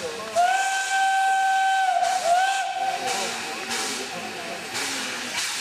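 Steam locomotive whistle hauling the Štefánik armoured train: one long steady blast of about a second and a half, then a short second blast, over the hiss of steam.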